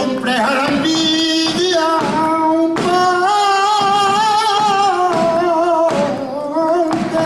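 Flamenco cante: a male singer holds long, wavering notes with melismatic turns, with scattered sharp percussive hits.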